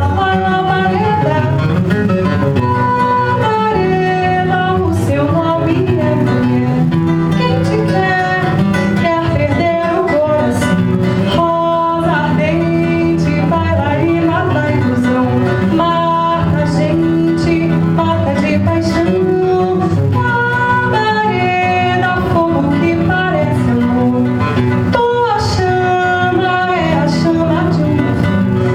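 Nylon-string acoustic guitar (violão) playing a Brazilian song, with a woman's voice singing along.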